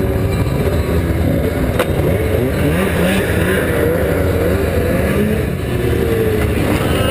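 Several race snowmobile engines idling and blipping their throttles together, their pitches wavering up and down over a steady low rumble.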